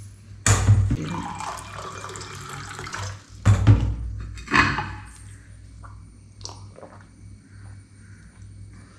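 Water running for a few seconds, with a few loud knocks of kitchen things around it, then scattered small clicks.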